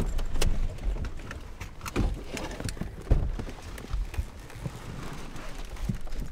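Irregular footsteps and knocks, with a few sharper thumps among them.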